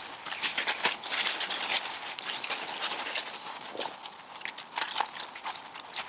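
Dogs' paws and footsteps rustling and crunching through dry fallen leaves in a quick, irregular crackle, busiest in the first half and thinning to scattered crunches later.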